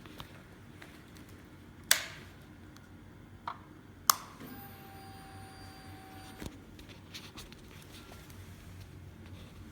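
A few sharp clicks, then a steady tone lasting about two seconds that cuts off suddenly with another click.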